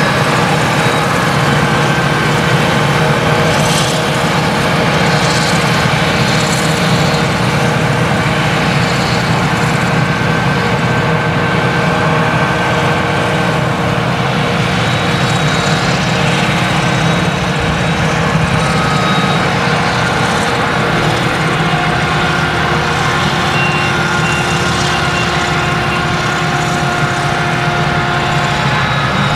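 Claas Jaguar 970 forage harvester's MAN V8 engine running steadily under load while chopping sorghum, a dense drone with several steady tones above it. The tractor hauling the trailer alongside adds its engine to the drone.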